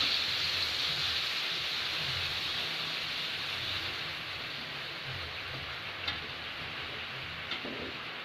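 Ground spice paste of garlic, shallots, chili and candlenut sizzling in hot oil in a pan, a steady hiss that slowly dies down, with a few faint clicks in the second half.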